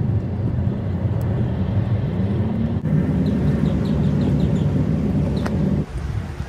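Tow vehicle driving, heard from inside the cabin: steady road and engine noise, with the engine's pitch rising as it accelerates about a second and a half in. A run of faint high chirps comes in the middle, and the noise drops suddenly near the end.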